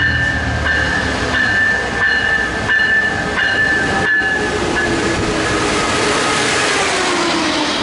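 An Amtrak passenger train rolls into the station close by, its wheels rumbling on the rails. A bell rings steadily in the first half. From about five seconds in, a squeal slides down in pitch as the train slows with its brakes applied.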